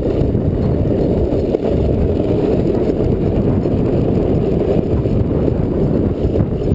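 Skateboard wheels rolling fast over rough asphalt, making a steady, loud rumble.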